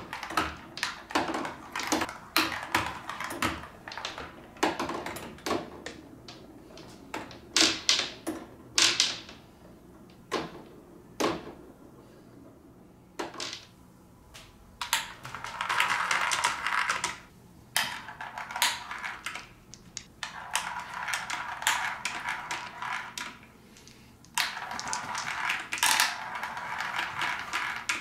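Small balls clicking and clattering down the plastic ramps of a water-tank marble run. Rapid irregular clicks fill the first half, and the second half has three longer stretches of dense rattling noise.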